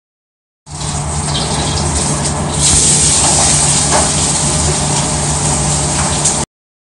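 Hot wok sizzling loudly, with a steady low hum beneath. The hiss grows louder about two and a half seconds in, and the sound cuts off abruptly near the end.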